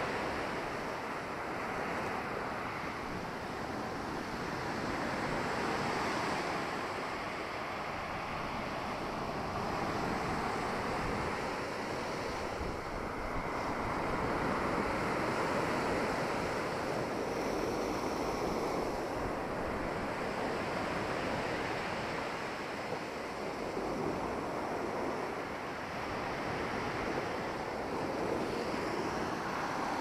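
Sea surf breaking and washing on a pebble beach, surging and easing every few seconds, with wind blowing across the microphone.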